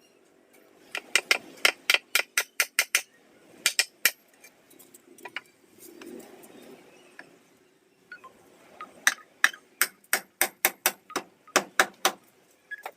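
Hammer blows in quick runs of sharp strikes, about four a second, with pauses between the runs.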